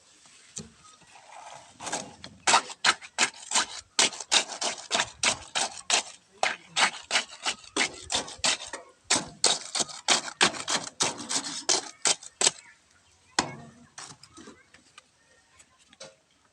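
A rapid series of sharp knocks, about three or four a second, for about ten seconds, then stopping, with one more knock a second later.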